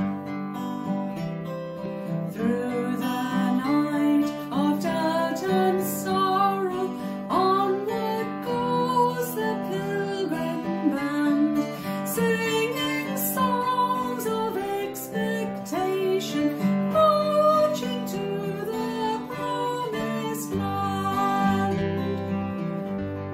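Acoustic guitar strummed as accompaniment, with a woman singing a hymn melody over it from about two and a half seconds in.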